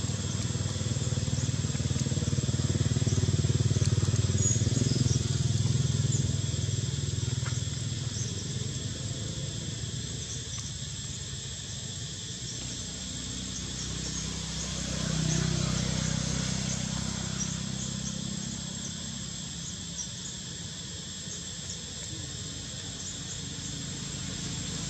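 Outdoor ambience dominated by a low rumble of distant road traffic, swelling a few seconds in and again about halfway through, over a thin steady high tone.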